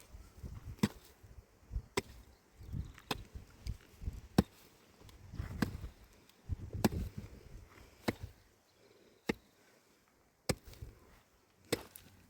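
Sharp knocks of a hand tool striking, irregular and about one a second, with softer low thuds in between and a short lull near the end.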